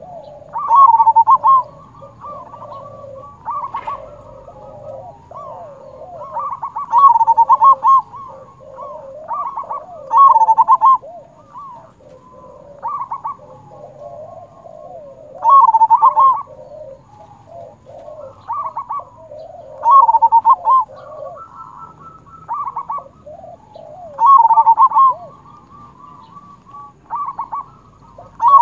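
Zebra dove (perkutut) singing its loud cooing song: a strong phrase about every four seconds, with softer cooing notes in between.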